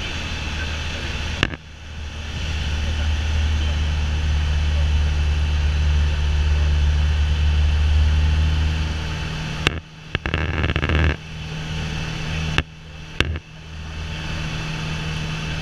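The PA-28 Warrior's four-cylinder Lycoming piston engine and propeller drone steadily in flight, heard from inside the cabin along with wind and airframe noise. The low drone swells for several seconds and then eases. A few sharp clicks break in, each with a brief drop in the sound: one a second or so in, one about two-thirds through, and two close together near the end.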